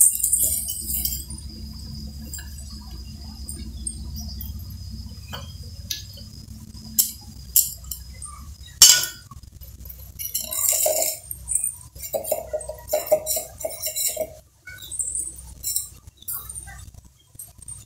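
A steel spoon clinking and scraping against a stainless steel mixer-grinder jar in irregular, scattered strikes, one much louder clank about nine seconds in and a quick flurry of clinks shortly after.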